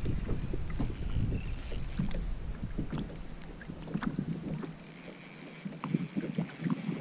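Wind buffeting the microphone on a kayak as a low rumble that eases off about two-thirds of the way through, with scattered light clicks and knocks throughout.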